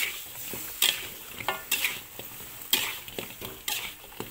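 Tumpi fritters frying in oil in an aluminium wok with a steady sizzle, while a metal spatula scrapes and knocks against the pan about once a second as they are turned.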